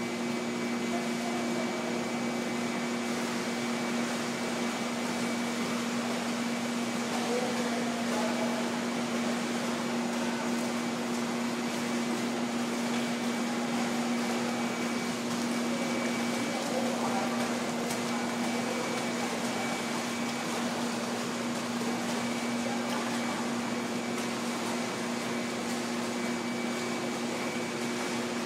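Steady mechanical hum of an indoor pool hall's machinery: two low steady tones and a higher thin tone over an even wash of noise, unchanging throughout.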